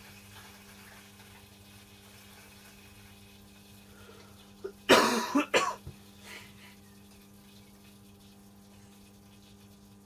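A person with a cold coughs in a short bout of four or five coughs about five seconds in, over the steady low hum of a Hoover Electronic 1100 front-loading washing machine running its wash.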